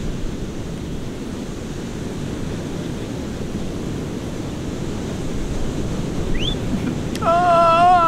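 Steady low rush of wind on the phone's microphone over breaking surf. About seven seconds in, a person's voice comes in loudly, holding one long drawn-out note.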